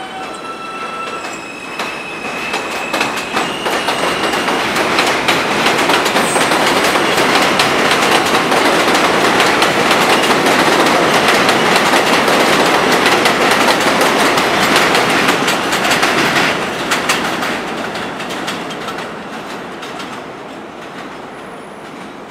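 New York City subway train of R160 cars pulling through the elevated station. Its motor whine steps up in pitch in the first few seconds as it gathers speed. Then the wheels rush and clack over the rail joints, loudest in the middle and fading away over the last few seconds.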